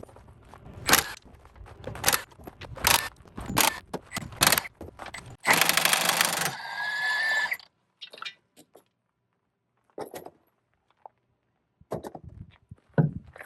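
Metal clanking and clinking of tools and wheel hardware on a bus's dual rear wheel. About five and a half seconds in, a large impact wrench runs in a dense burst of about a second on a budd wheel nut, with a whine trailing off as it stops. A few scattered clicks follow.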